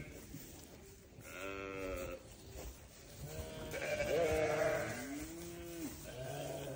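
Goats bleating: several separate calls, some overlapping, starting about a second in. One lower call near the end rises and then falls in pitch.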